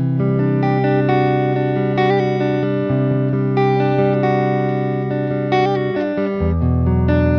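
Electric guitar played through GFI System effect pedals (Specular reverb and Clockwork delay): sustained notes that ring on and overlap, with a new note or chord about every second over a held low note that drops out briefly near the end.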